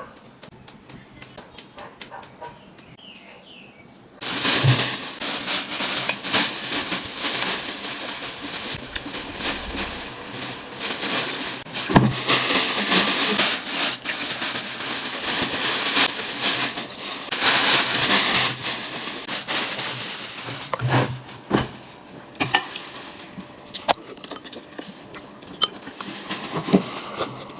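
Food sizzling in hot oil in a pan, starting suddenly about four seconds in, with a few sharp clicks of a utensil against the pan.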